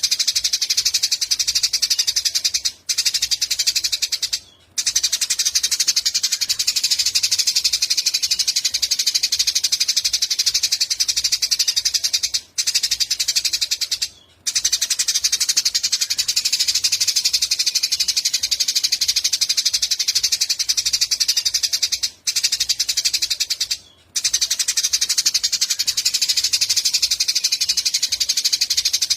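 A small songbird trilling and chattering in a dense, high, very rapid stream, as used for masteran song tutoring of cage birds. The song cuts out briefly six times, in pairs roughly every ten seconds, as the recording loops.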